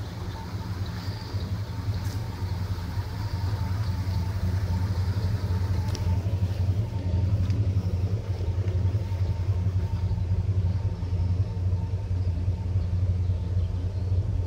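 1974 Cadillac Eldorado's 500 cu in (8.2 litre) V8 running steadily with a deep, even rumble, getting a little louder about six seconds in.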